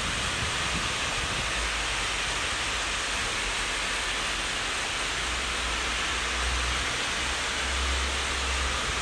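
Steady rushing noise of an Intercity train, hauled by a DB class 101 electric locomotive, approaching in the distance, with a low rumble that swells twice in the second half.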